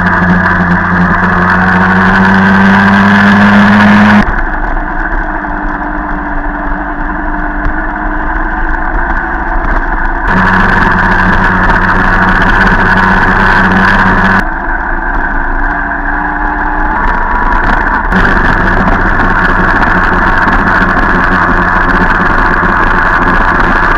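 Jawa Pionýr moped's 50 cc two-stroke single-cylinder engine running under way, heard from the rider's position. The note climbs slightly, then drops back abruptly about four seconds in, picks up again near the middle, and drops and returns once more, over steady wind and road noise.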